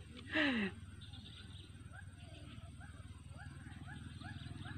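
Faint, repeated short rising calls from a wild animal, about two or three a second, starting about one and a half seconds in, over a low steady background. A brief falling voice sound comes just after the start.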